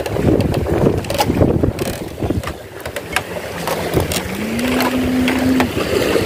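Wind buffeting the microphone over choppy sea, with scattered clicks of a spinning rod and reel being handled. A bit past halfway, a steady hum rises in pitch for about two seconds and then breaks off.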